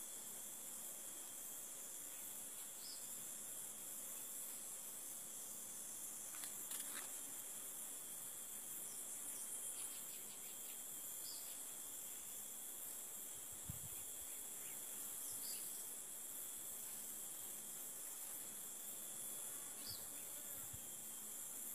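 Faint, steady high-pitched drone of insects, with a thin constant whine under it. A few short, faint chirps and clicks come and go, and there is a soft thump about two-thirds of the way through.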